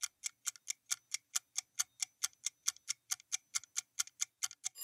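Clock-ticking countdown timer sound effect: a steady run of short, sharp ticks, about four to five a second, coming closer together near the end.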